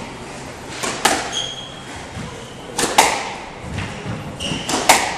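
A squash ball being struck by rackets and smacking off the court walls: sharp cracks in quick pairs about every two seconds, ringing in the large court. Short high squeaks of shoes on the wooden floor come between the hits.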